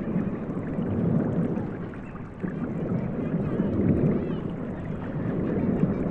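Children playing at a public pool, with faint distant shouts and chatter over a steady rush of ocean surf. The loudness swells and dips, with a brief dip a little past the middle.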